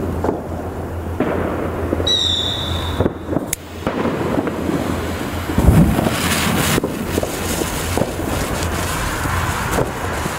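A hanging chain of homemade youth-firework balls burning: a continuous hiss of sparks with dense crackling, loudest about six seconds in, with a short high whistle about two seconds in.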